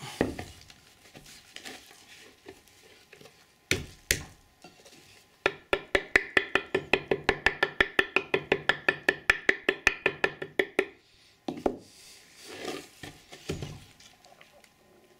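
A small hammer taps rapidly on the back of a plaster mould block, about six even blows a second for some five seconds, to knock the stuck silicone mould and clay loose. A few single knocks come before the run, and the block is handled after it.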